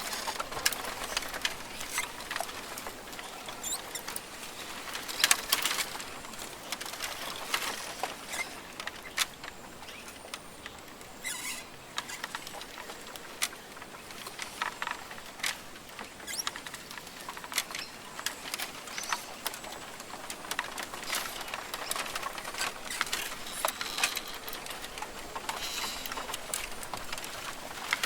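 Rainforest ambience: many irregular soft clicks and taps over a steady high hiss, with a faint high bird call about ten seconds in.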